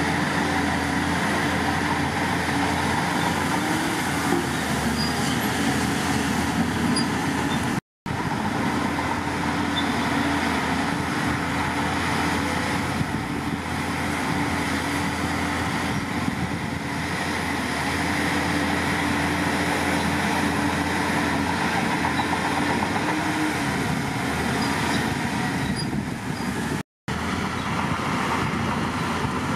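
Diesel engine of heavy earthmoving machinery running steadily, with an even hum. The sound cuts out for an instant about eight seconds in and again near the end.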